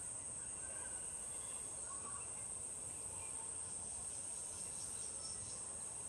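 Steady, high-pitched insect chorus buzzing without a break, over faint outdoor background noise.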